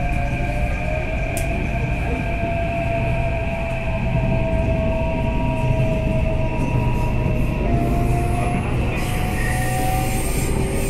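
Inside a Delhi Metro train leaving a station: a steady rumble of wheels on track, with several thin whining tones from the drive that slide and shift in pitch.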